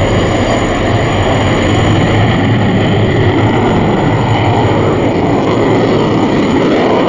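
Loud, steady jet engine noise from a General Dynamics F-16 Fighting Falcon flying a display close to an AH-64 Apache helicopter.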